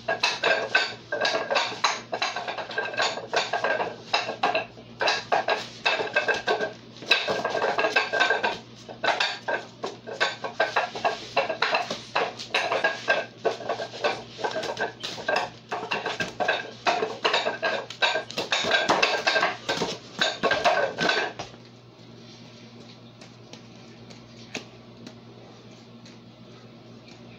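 Rapid clacking of hands and forearms striking the wooden arms of a Wing Chun wooden dummy, a dense flurry of knocks that stops about three-quarters of the way through. Afterwards only a faint steady hum and a few scattered taps remain.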